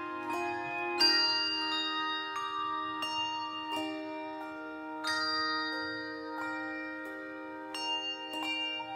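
Handbell choir ringing a slow piece in chords: each stroke of several bells at once rings on and overlaps the next, with a fresh chord struck every second or two, the strongest about a second in.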